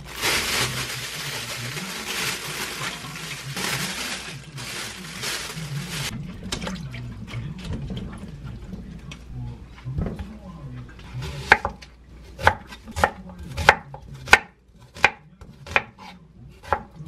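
Soybean sprouts are shaken from a plastic bag into a metal bowl of water and swished about by hand, a rustling, splashing hiss over the first several seconds. From about eleven seconds in, a kitchen knife cuts an onion into large pieces on a wooden cutting board, sharp knocks about twice a second.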